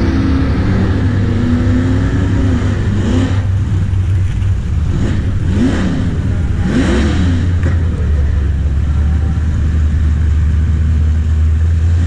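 Drag-racing car engines idling and revving at the starting line, heard from down the track: a low steady engine drone with two quick revs, up and back down, about midway.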